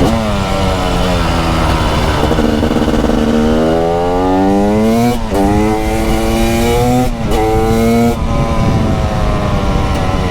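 TM SMR 300 two-stroke single-cylinder supermoto engine heard from on board: revs drop off at first, then climb hard under acceleration with two quick upshifts, the pitch breaking and climbing again after each one. After that the engine runs rougher as the throttle eases off.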